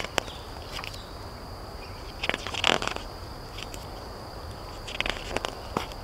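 Glossy book pages being turned by hand, a series of short paper rustles and flaps, the loudest and longest about two and a half seconds in. A faint steady high tone runs underneath.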